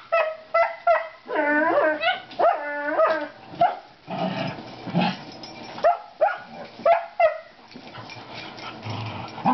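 Dogs in rough play: a quick run of short, high, whining yips, then a rougher, lower stretch, and four sharp barks about half a second apart, a little over halfway through.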